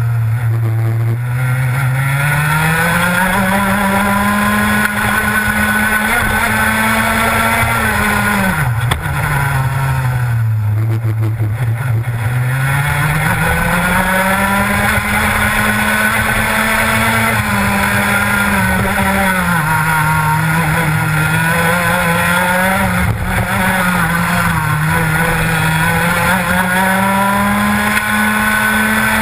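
Rotax Max 125cc two-stroke kart engine running at racing speed. The engine note climbs and holds high on the straights, drops sharply as the driver lifts for a corner about nine seconds in, then climbs again, with smaller dips later on.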